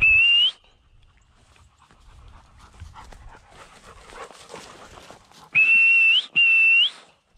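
A bird-dog handler's whistle blown in three loud blasts: a short one at the start, then two longer ones back to back near the end. Each holds one steady pitch and flicks upward as it ends. Faint rustling and footsteps in the cover come between the blasts.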